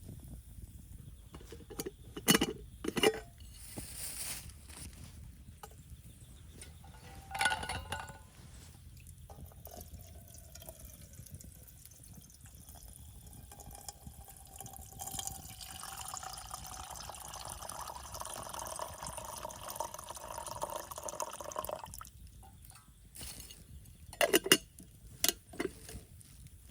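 Liquid being poured, a steady pouring hiss lasting about seven seconds from the middle of the clip, with sharp clinks of cookware before and after it.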